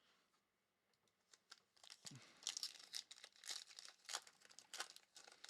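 Plastic wrapping crinkling as trading cards are handled: a quick, fairly quiet run of crackles and rustles starting about a second and a half in.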